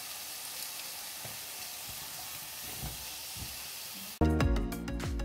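Courgette slices frying in a pan, a steady sizzle with a few soft knocks as a spatula stirs them. About four seconds in, loud background music cuts in suddenly.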